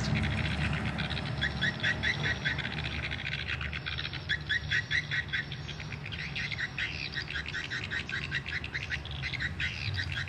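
Swiftlets chirping: repeated runs of quick, high twittering chirps, several a second, each run about a second long, over a steady low hum.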